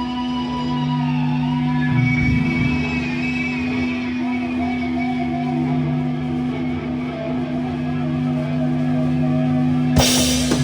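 Live rock band: low guitar and bass notes held and ringing, with wavering, bending guitar lines over them. Near the end a cymbal crash hits as the drum kit comes back in.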